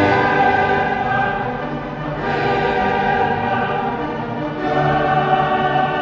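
Coloratura soprano singing three long, high held notes, each about two seconds, over an orchestra, in an old recording with dull, limited treble.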